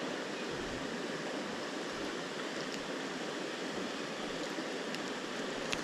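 Creek water running with a steady rush, and a faint click just before the end.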